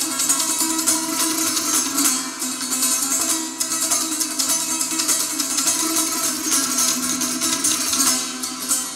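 Instrumental music on a plucked long-necked lute, a steady stream of picked notes.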